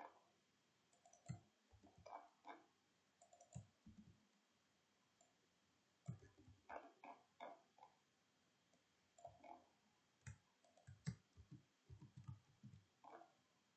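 Faint computer keyboard and mouse clicking, in irregular clusters of quick taps with short pauses between, as code is edited.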